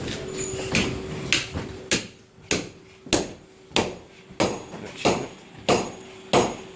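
Steady hammer blows, about one and a half strikes a second, each a sharp ringing knock, over a faint steady hum.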